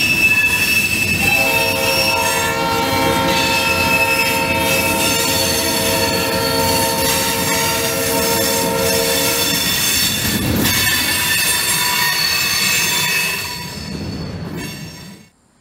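Loaded freight cars rolling past with steady high-pitched wheel squeal and rail clatter. About a second in, a locomotive's multi-chime horn sounds a long held chord for about eight seconds. The train noise fades as the last car goes by near the end.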